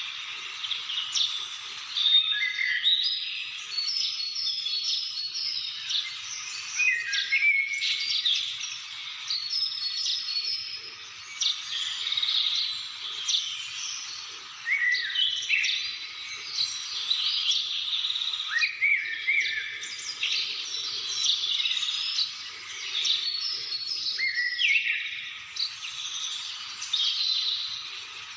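Several birds calling and singing at once in a busy, unbroken chorus of short chirps and whistles, many of them quick rising or falling notes.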